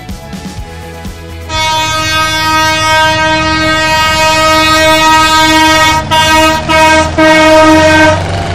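An air horn blowing one long, steady note for about six and a half seconds, starting about a second and a half in, with two brief breaks shortly before it stops.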